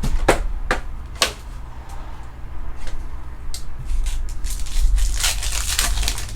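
Trading-card packs being opened and handled: wrapper crinkling with a few sharp clicks in the first second and a half, and a burst of crackling about five seconds in.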